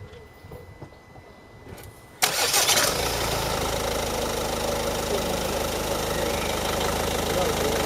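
Ford Focus engine starting about two seconds in, a short burst of cranking as it catches, then settling into a steady idle.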